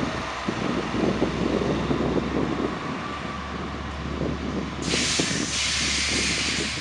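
Diesel locomotive hauling passenger coaches pulls away, its engine running with a steady low drone under the uneven rumble of wheels on the rails. A sudden loud hiss starts about five seconds in and lasts about two seconds.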